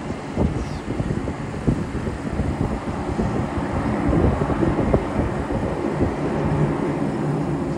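Distant jet engines of Blue Angels F/A-18s on the runway, a steady low rumble, mixed with wind buffeting the microphone.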